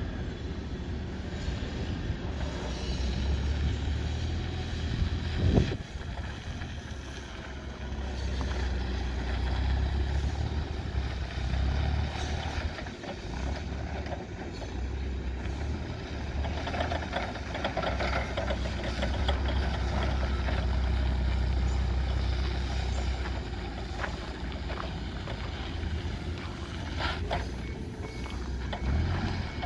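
2015 Toyota 4,000 lb-capacity forklift driving about on gravel, its engine running low and steady, swelling and easing with the throttle. A single sharp clunk comes about five and a half seconds in.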